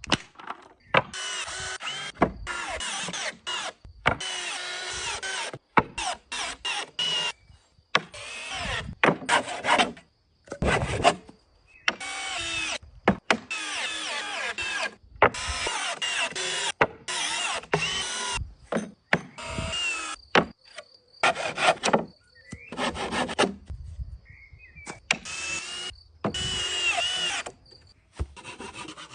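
A quick series of short power-tool sounds on wood, each starting and stopping abruptly, some with a whine that shifts in pitch.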